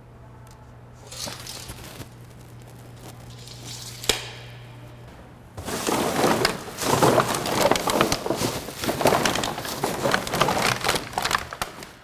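Large plastic bags full of empty plastic water bottles being handled: a brief rustle and a single knock in the first half, then about six seconds of dense crinkling and crackling of plastic film and bottles.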